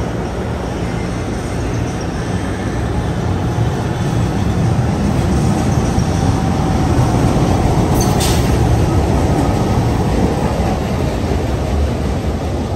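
LRT-1 light rail train running past along the platform, a steady rumble that grows louder through the middle and eases as the last car clears. A brief high-pitched sound comes about eight seconds in.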